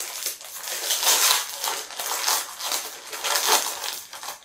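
Crinkly plastic candy packaging from a bag of Mega Warheads sour candies being handled, with crackling that swells and fades several times.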